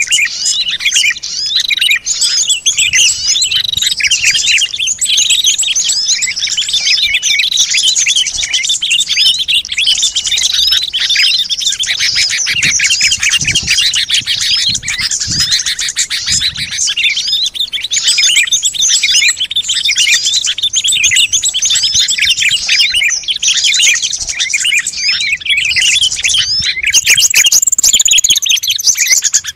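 Dense chorus of many small songbirds chirping and twittering without pause, rapid overlapping calls and trills: a bird-lure recording made to call in small wild birds.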